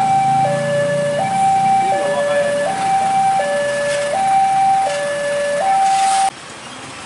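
Two-tone electronic alarm switching between a higher and a lower note about every three-quarters of a second, over the low rumble of a passing truck's engine that fades in the first two seconds. The alarm cuts off suddenly about six seconds in.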